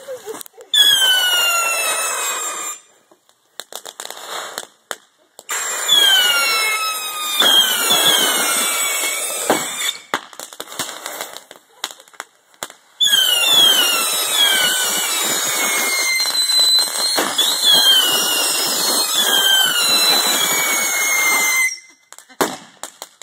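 Whistling bottle rockets going off in a fire pit: many overlapping whistles falling in pitch, with pops and crackling. They come in three bursts: a short one just after the start, another about six seconds in, and a long one from about thirteen seconds that stops shortly before the end.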